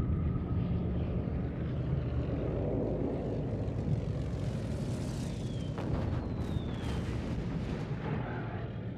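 Propeller aircraft engines droning over a heavy battle rumble, with two falling whistles and sharp cracks in the second half.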